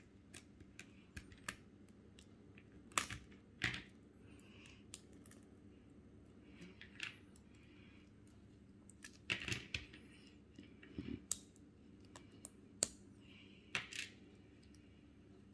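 Small plastic LEGO pieces clicking as they are pressed together and handled, in scattered sharp clicks, with louder ones around three, nine and a half and thirteen seconds in.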